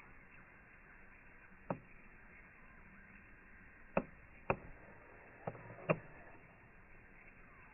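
Five short, sharp knocks, one alone and then four close together, over a faint steady background.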